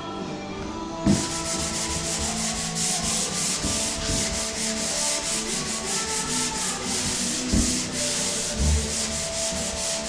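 Drywall being hand-sanded with a sanding block: a scratchy rasp in quick back-and-forth strokes, starting about a second in, with a few low knocks.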